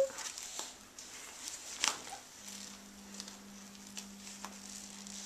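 Quiet room with a few light taps and clicks, one sharper click about two seconds in. A faint steady hum comes in about halfway through.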